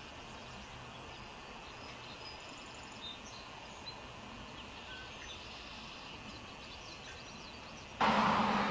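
Outdoor ambience: a steady hiss with scattered faint high bird-like chirps. Near the end it switches abruptly to a louder rushing noise with a low hum.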